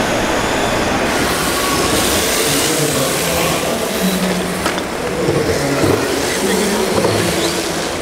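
1/10-scale electric RC drift cars running on an indoor track: a steady rush of motor and tyre noise over a wavering background hum, with one sharp knock a little after the middle.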